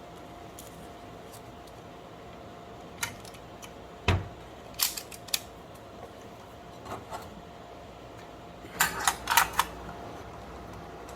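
Sharp clicks and snaps of the Tesa/Onity hotel door lock's small parts being fitted back together by hand, over a faint steady hum. The clicks are scattered, with one knock that carries a low thud, and they end in a quick run of about four snaps near the end, the loudest of them.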